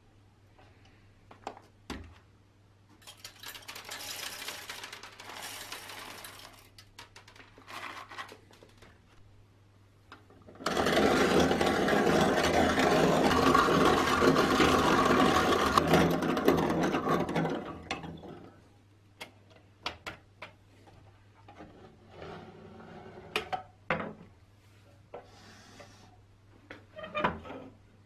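Restored 1930 Peugeot Frères hand-cranked coffee mill grinding coffee beans. The grinding is loud and steady for about seven seconds, starting about eleven seconds in. Before it, beans rattle into the metal hopper; near the end there are small clicks and knocks as the wooden drawer is handled.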